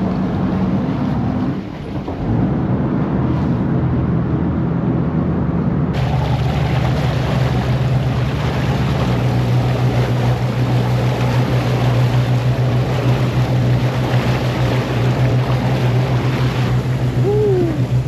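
Motor vessel under way: the boat's engine drones steadily beneath a rush of wind and water.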